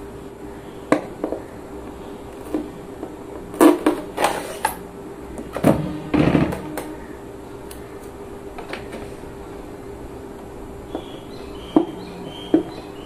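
Hollow plastic knocks and clunks as an air fryer's basket and housing are handled, with the heaviest clunks about six seconds in as the basket is pushed into the housing. Near the end come a couple more light knocks and faint squeaks while protective tape is peeled off the body.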